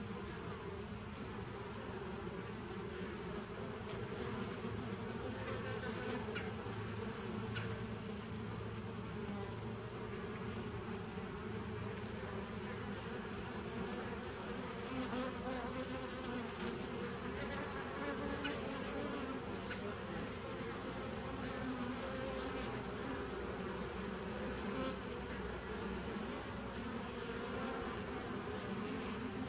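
Honey bees buzzing at the entrance of a hive: a steady hum of many wings, its pitch wavering as single bees fly in and out close by.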